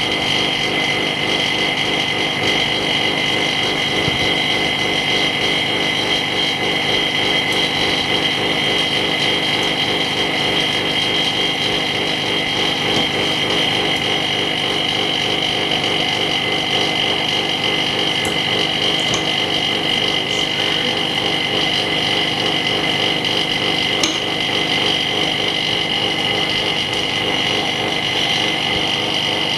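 A small machine running with a steady hum and two high whining tones, unchanging throughout.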